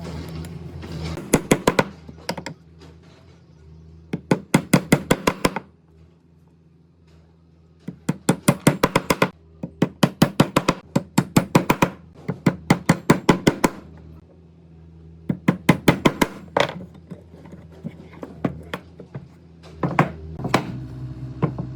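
Rapid trains of sharp knocks, about eight a second, coming in bursts of a second or so with short pauses between, over a steady low hum.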